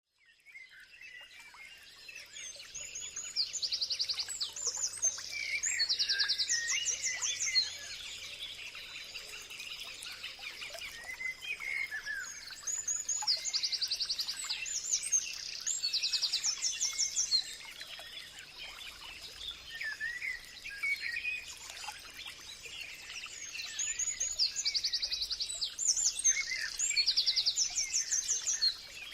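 Songbirds singing: bursts of rapid high trills and chirps that come back about every ten seconds, with quieter chirping between them and a thin steady high tone underneath.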